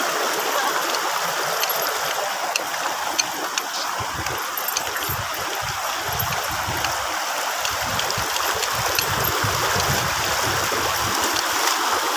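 Shallow, rocky mountain stream rushing over boulders: a steady rush of white water.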